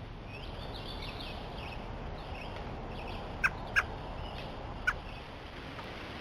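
Bird calls: a run of quick, high chirps over the first couple of seconds, then three short, sharp calls, two close together just past the middle and one about a second later.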